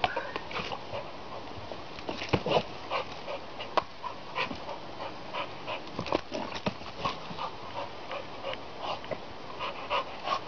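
Pit bull panting hard in a quick, steady rhythm while jumping and biting at a hanging fishing buoy, with several sharp knocks as she hits the buoy: one at the start, two close together about two seconds in, and more around four and six seconds.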